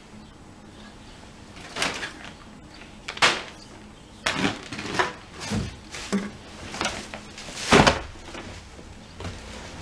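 Irregular knocks and rustling as someone moves about and handles things, including a plastic bag, with a loud bump about three-quarters of the way through as he comes up to the camera.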